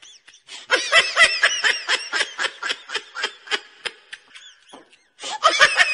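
High-pitched laughter: a rapid run of short 'hee' notes, about five a second, breaking off briefly about five seconds in and then starting again.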